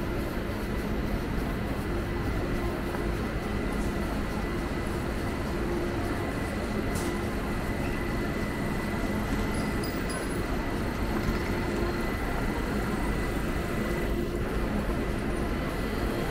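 Steady ambience of a large train station: a continuous low rumble with a thin, steady high whine and a lower hum that comes and goes.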